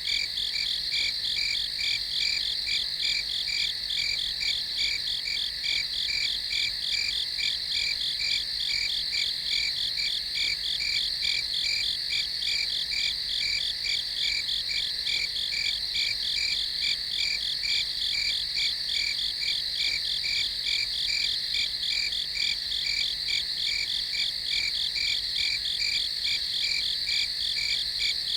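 Crickets chirping in a steady night chorus, a high, evenly pulsing trill that keeps on without a break.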